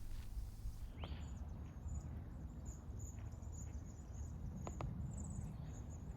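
Faint, repeated high-pitched chirping from small wildlife in the wetland, over a low wind rumble, with a short falling call about a second in.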